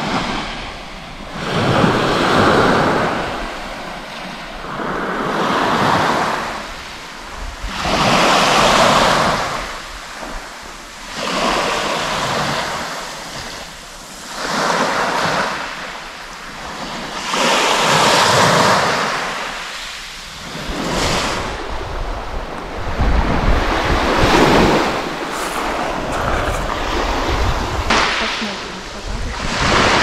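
Sea of Azov waves breaking on the shore, each wash swelling and fading about every three to four seconds, with wind rumbling on the microphone.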